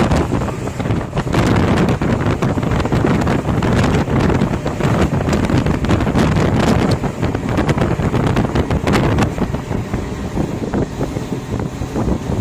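Heavy wind buffeting the microphone: a loud, uneven rumble with crackles, which covers any other sound.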